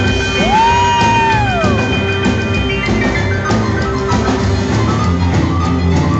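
Live rock and roll band playing: stage-piano chords over a drum kit. About a second in, a high note swoops up, holds and slides back down over the music.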